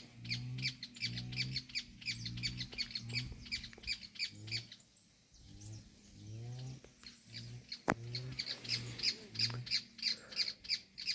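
A bird calling in a fast series of harsh, squawking notes, about four a second, dropping away for a few seconds in the middle before starting again.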